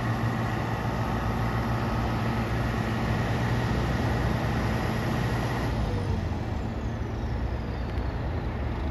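A vehicle engine running steadily, a little quieter after about six seconds, over a steady rushing noise.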